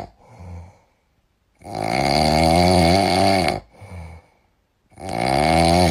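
Snoring: two long, loud snores, each about two seconds, with a short, fainter breath before each.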